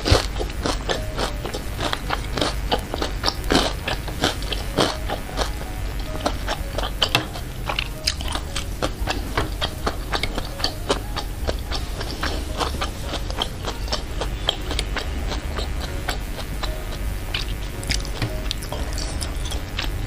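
Close-miked chewing of a mouthful of meatball: a steady run of small wet clicks and smacks from the mouth.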